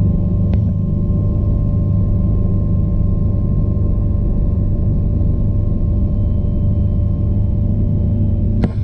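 Bell 429 helicopter's twin turboshaft engines and rotor running steadily, a low rumble with a steady turbine whine. There is a light click about half a second in and a couple of sharp clicks near the end.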